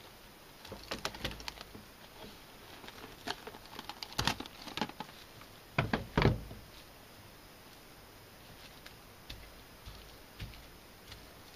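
Handling noises of plastic cling film being laid and pressed onto a cutting board: scattered light taps and crinkles, with a few knocks, the loudest a pair of thumps about six seconds in.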